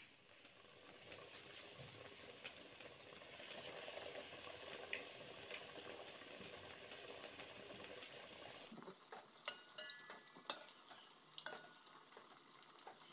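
Breaded chicken cutlets deep-frying in hot oil in a steel pan: a steady sizzle with scattered pops. About nine seconds in the sound changes to sparser crackling with sharp clicks as a slotted spoon stirs the cutlets against the pan.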